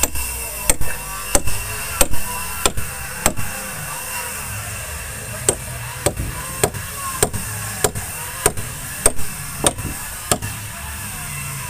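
Hammer driving 10 mm iron rods up into a wooden boat hull, sharp blows at a steady pace of a little under two a second, with a pause of about two seconds after the first several strikes.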